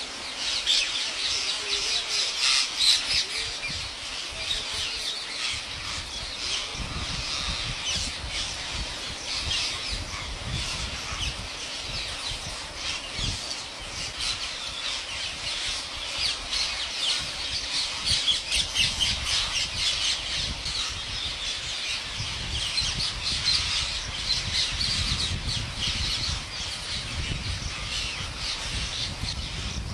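A huge flock of rose-ringed parakeets screeching all at once: a dense, unbroken chorus of harsh, overlapping calls.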